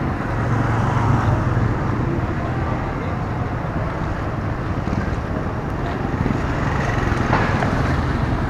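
Street traffic noise with a vehicle engine running steadily as a low hum, growing a little louder about a second in and again near the end.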